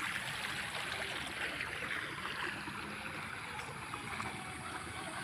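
Small roadside stream, swollen by a night of heavy rain, flowing fast: a steady sound of running water.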